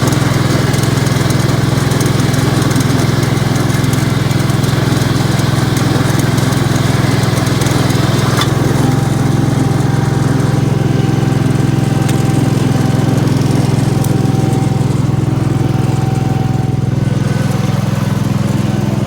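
Gravely 812 garden tractor's engine running at a steady speed.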